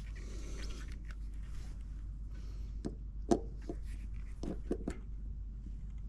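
Scattered sharp clicks and taps of multimeter test leads being handled and put on a furnace blower motor's run capacitor to measure its capacitance, over a steady low hum. The clicks bunch between about three and five seconds in, the loudest a little after three seconds.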